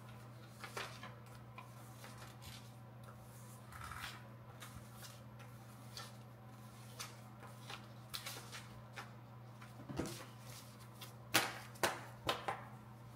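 Paper lottery tickets being shuffled and handled: soft, scattered rustles and crinkles, a few louder ones near the end, over a faint steady low hum.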